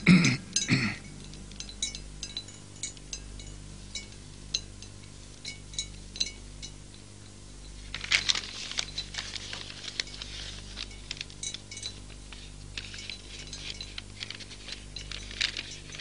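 Light clinks and taps of small vessels being handled and set down on a carpeted floor, scattered irregularly, with a short burst of rustling about eight seconds in, over a low steady hum.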